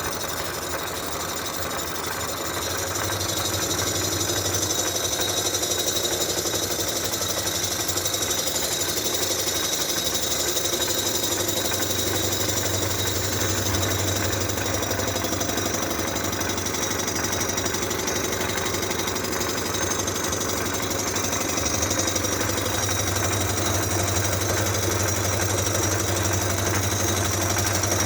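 A head-surfacing machine running steadily as it cuts the rusty exhaust-side face of an Oldsmobile V8 cylinder head flat. It gets louder about three seconds in, then holds a steady hum with a high-pitched cutting hiss over it.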